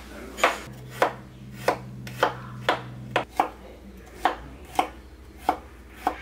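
Kitchen knife slicing garlic cloves on a plastic cutting board: about eleven sharp knocks of the blade on the board, roughly two a second.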